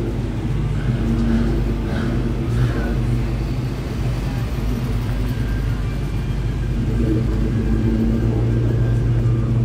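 Car engine running steadily with a low, even rumble; faint voices in the background.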